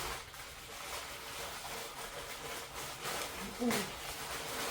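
Plastic packaging bags rustling and crinkling as items are handled and pulled out, with a short pitched sound about three and a half seconds in.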